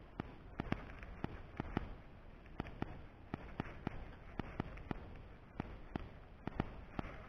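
Fishing reel clicking rapidly and a little unevenly, about three sharp clicks a second, as a soft-plastic lure is wound back in.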